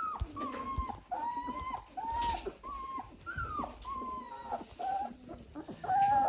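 German Shorthaired Pointer puppies whimpering and squealing: a run of short, high whines about twice a second, several of them arching up and then dropping in pitch.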